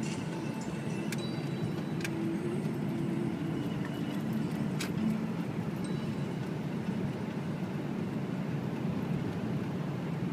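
Steady road and engine noise heard inside a moving car's cabin, with a few faint clicks.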